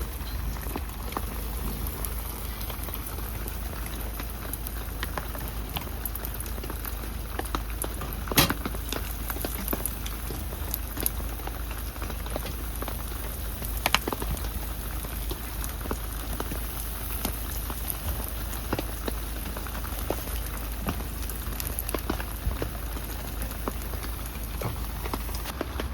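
Steady rain falling, a dense patter of small drop ticks, with two sharper, louder drips about eight and fourteen seconds in.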